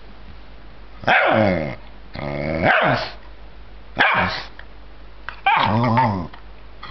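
Cairn terrier giving four drawn-out growling barks, each under a second long and bending in pitch, as a hand teases it in rough play.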